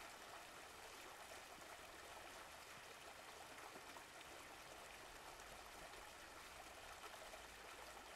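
Faint, steady rushing of a river flowing over rocks.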